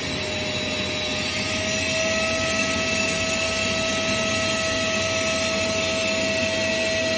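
Wet and dry vacuum cleaner motor running steadily, a rushing airflow with a high whine over it; the whine steps up a little in pitch about a second and a half in.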